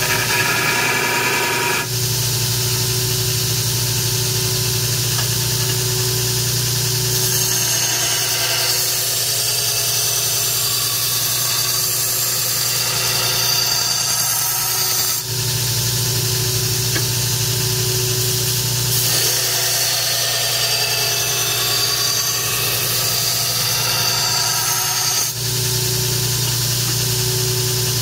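Grizzly 2x72 belt grinder running with a coarse 36-grit belt while an AEB-L stainless steel blade is ground freehand against it to cut the initial bevels of a chef's knife. A steady motor hum runs under a grinding hiss that changes with each pass of the blade, with three brief letups as the blade is lifted off.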